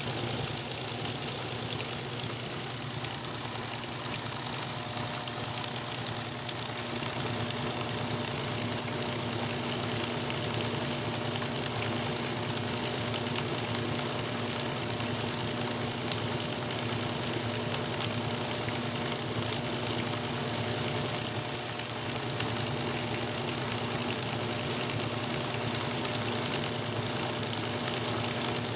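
Electrolux Top 8 top-loading washing machine running through its rinse cycle: a steady motor hum with an even hiss, unchanging throughout.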